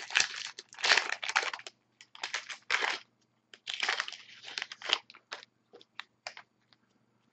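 A trading-card pack wrapper crinkling and being torn open, with the cards being handled. It comes as irregular crackly bursts, heaviest in the first three seconds and again around four to five seconds in, then thins to a few scattered ticks.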